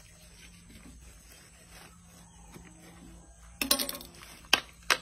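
Sharp knocks of a knife and a whole plucked chicken on a wooden cutting board while the chicken is jointed: quiet handling at first, then one heavier knock with a short ring about three and a half seconds in and two quick sharp knocks near the end.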